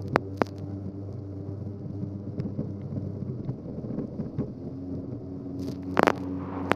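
Polaris SL750 personal watercraft's two-stroke engine running at a steady pitch while skimming over choppy water, with a few sharp slaps of water near the start and about six seconds in.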